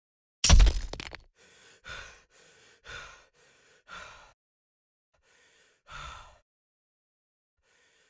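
A loud crash about half a second in, then a person's ragged, gasping breaths: about six in quick succession, then after a pause a couple more, slower, like someone wounded struggling for air.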